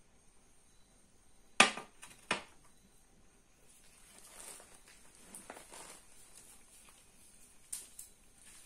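Two sharp knocks as a glass bowl is set down on a glass table top, followed by soft crackling as crisp fried fish is broken apart by hand, with a couple of light clicks near the end.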